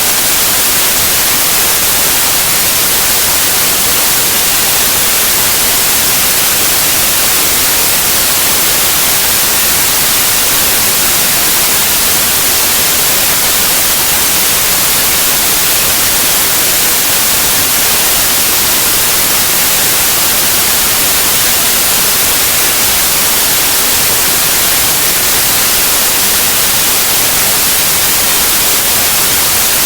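Steady, loud white noise, an even hiss weighted toward the high end, with no change or events.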